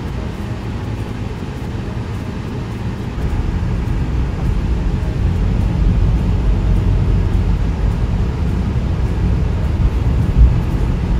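A car driving, its road and wind noise heard from inside the cabin as a steady low rumble that grows a little louder about three seconds in.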